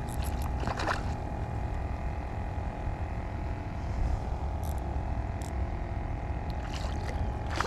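A hooked little black drum splashing briefly at the water's surface, about a second in and again near the end, over a steady low hum and rumble.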